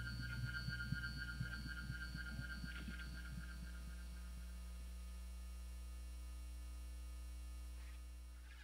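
Closing section of an electronic music track: a deep, steady drone with a fast pulsing throb over it. The throb dies away about four seconds in, leaving the drone alone, which fades out near the end.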